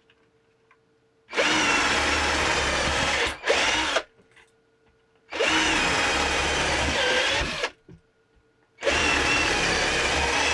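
Viwko 20 V cordless drill on speed 2 boring three holes into wood with a 6 mm wood bit: three runs of about two seconds each, a few seconds apart, the first followed by a short extra burst.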